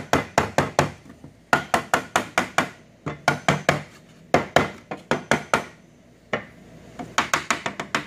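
Hammer tapping on a wooden block held against the plastic tool-holder carousel of a Bridgeport Torq-Cut 22 tool changer, driving the tool clips into place. Quick runs of sharp taps, about five a second, with short pauses between the runs.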